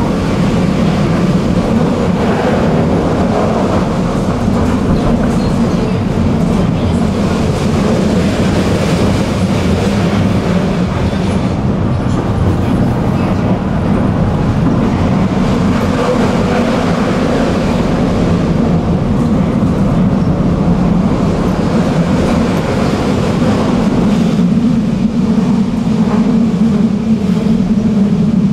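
Tram running along its track, heard from inside the car: a steady, loud low rumble of wheels on rails.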